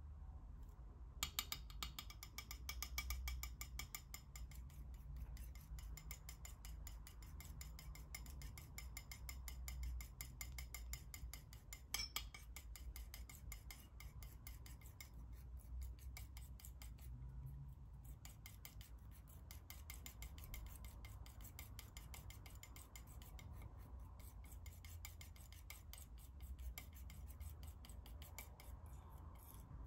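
Metal palette knife scraping and spreading thick paint across a smooth surface: a fine, rapid rasp that starts about a second in, with a couple of short pauses.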